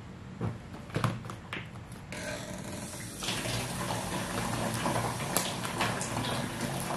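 A few short knocks, then a tap starts running about two seconds in and grows stronger about a second later, water splashing steadily as fruit is washed under it.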